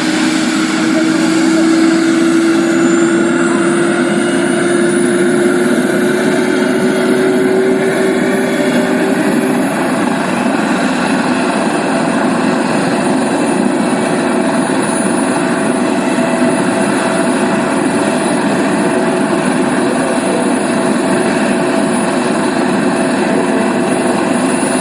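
Helicopter turbine engine and rotor running loudly and steadily. Its whine climbs in pitch over the first several seconds, as the turbine spools up, then holds steady.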